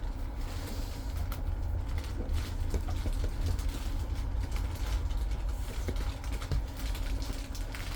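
Irregular light clicks and rustles of a Christmas stocking's contents being handled, over a steady low rumble.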